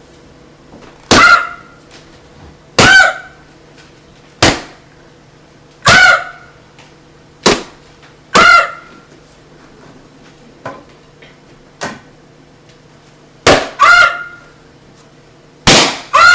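A series of about a dozen sharp, loud pops or cracks at irregular intervals, several with a brief honk-like tone right after the hit, over a faint steady hum.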